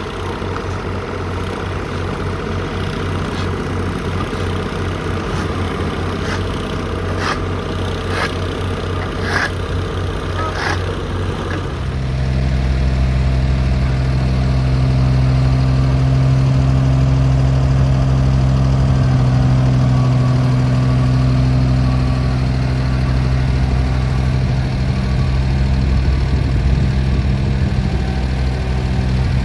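Heavy diesel paving equipment running. A low, rapidly pulsing engine sound with a few sharp knocks gives way, about twelve seconds in, to a louder, steady low engine sound.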